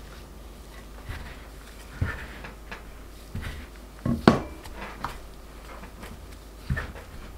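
Stainless steel bench scraper pressing, tapping and scraping crumbly scone dough against a silicone baking mat: irregular short knocks and scrapes, the loudest pair about four seconds in.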